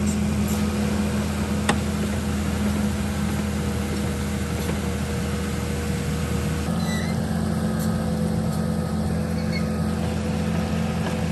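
Vehicle engine running steadily at a constant pitch, its note shifting slightly about two-thirds of the way through; one sharp click about two seconds in.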